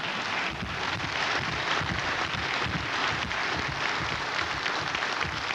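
A large audience applauding, a dense steady patter of many hands clapping.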